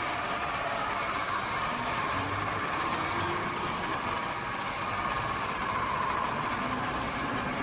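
Swivel Sweeper G6 cordless battery sweeper running, its motor spinning the four rotating brushes with a steady whine as it is pushed over the floor.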